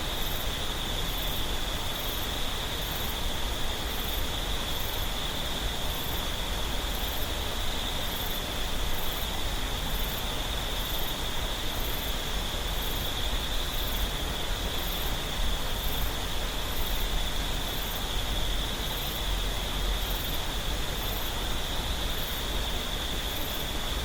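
Clear mountain stream water babbling steadily over rocks, with a continuous high-pitched insect drone over it.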